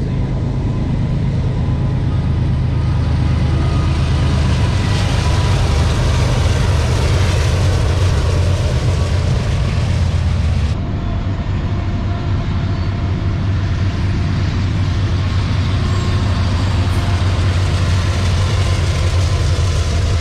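GE diesel freight locomotives working past at close range, a loud steady engine drone with a deep hum. The sound changes abruptly about eleven seconds in, as at a cut between clips.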